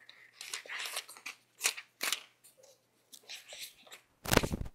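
Paper pages of a book being turned and rustled in short irregular bursts, with the loudest rustles near the end.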